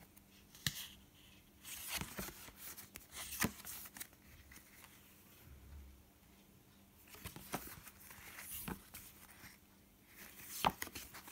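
Postcards being leafed through by hand: card sliding and flicking against card in short, scattered bursts every second or two, quiet in between.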